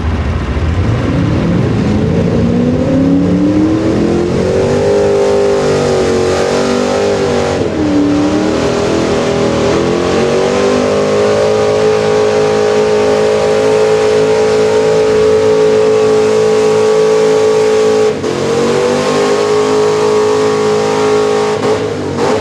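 Early-1970s Dodge pickup's engine at full throttle pulling a weight-transfer sled: the revs climb over the first few seconds, dip briefly about eight seconds in, climb again and hold high, drop for a moment near eighteen seconds, then fall away near the end.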